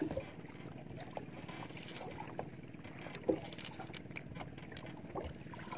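A small boat's gasoline engine running steadily at idle, with scattered light clicks and knocks as a spinning reel is worked. One sharper knock comes a little past three seconds in.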